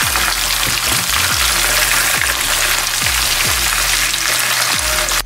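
Whole red tilapia shallow-frying in hot coconut oil in a pan, a steady loud sizzle.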